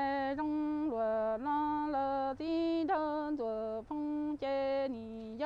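A woman singing unaccompanied in Hmong in a chanted style. She holds each syllable on a level pitch and steps between two or three notes about twice a second, with brief breaths between phrases.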